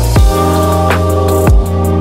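Electronic background music: a deep kick drum hits twice over held bass notes and synth chords.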